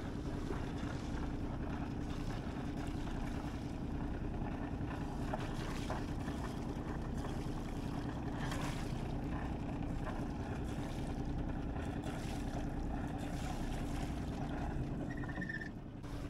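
A small sailboat's engine idling steadily while she sails in light air, a low, even hum, with a light hiss of wind and water.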